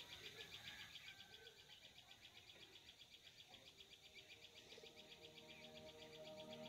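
Faint insect chirping, a steady train of many quick pulses a second, with a few faint bird calls. Soft background music fades in near the end.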